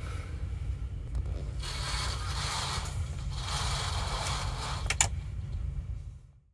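Steady low drone of a car ferry's engines carried through the cabin, with rustling and scraping in the bunk and one sharp click about five seconds in as the bunk's wall light is switched off. The sound fades out just before the end.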